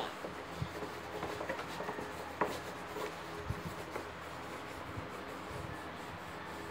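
Pencil scratching on paper while drawing in a book, with a few light taps and a steady low hum underneath.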